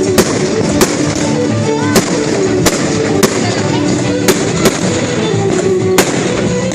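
Fireworks going off in sharp single bangs, about eight at uneven intervals, over music and voices.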